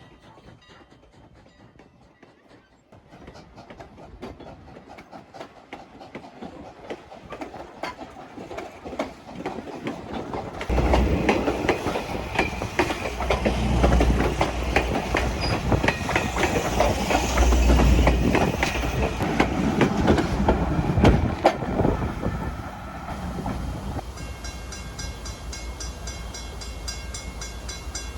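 Steam locomotive No. 89, a 2-6-0 mogul, and its excursion train approaching and passing: wheels clicking over the rail joints grow louder, a heavy rumble sets in suddenly about 11 seconds in as the engine goes by, then the train rolls on more steadily and quietly.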